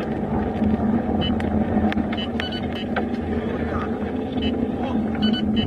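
Steady road and engine noise of a car cruising on a highway, heard from inside its cabin, with a few faint clicks and chirps on top.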